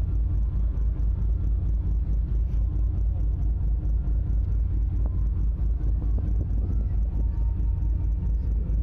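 Diesel engine of the icebreaker sightseeing ship running under way: a steady, deep rhythmic throb of about five beats a second.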